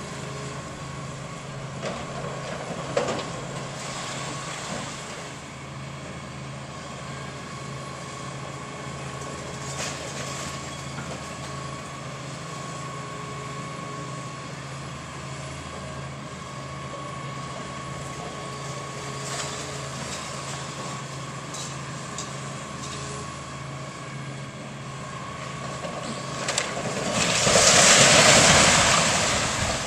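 Hitachi demolition excavator's diesel engine running steadily, with a few scattered knocks of debris. Near the end a loud crash lasting about two seconds as brick masonry collapses from the building.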